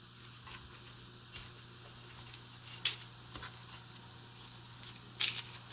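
Faint rustles and light ticks of hands shifting and pressing cookie dough balls on a parchment-lined sheet pan, a little louder near the end, over a low steady hum.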